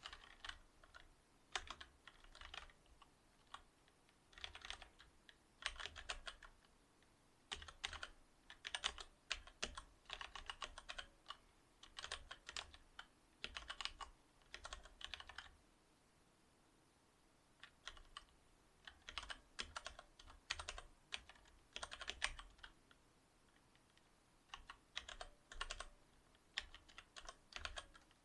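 Typing on a Cherry MX Board 8.0 mechanical keyboard with Cherry MX Silver linear switches: bursts of fast keystrokes, with a pause of about two seconds midway.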